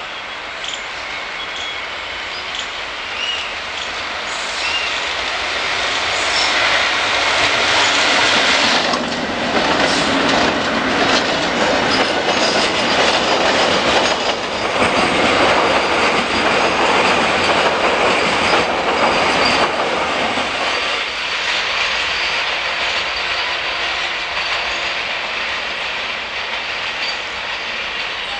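Electric-hauled container freight train passing close by, wheels clattering steadily over the track. It grows louder over the first several seconds, is loudest through the middle as the wagons run past, and eases off in the last few seconds.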